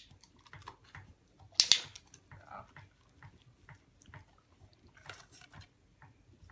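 A training clicker gives one sharp click about one and a half seconds in, marking the behaviour; around it an Australian shepherd makes soft chewing and licking sounds as it takes treats from a hand.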